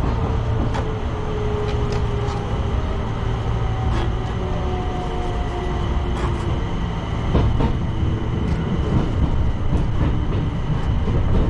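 Enshu Railway 2000-series electric train running, heard from inside the front car: a steady low rumble with the electric motors' whine slowly falling in pitch, and scattered sharp clacks of the wheels over rail joints.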